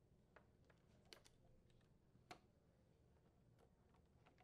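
Near silence, with a few faint, short clicks of the plastic dispenser actuator and housing being handled as the actuator is lifted out of a GE refrigerator's dispenser.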